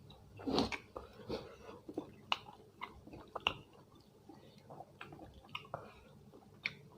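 A person chewing food close to the microphone: wet mouth smacks and sharp clicks at irregular intervals, with one louder smack about half a second in.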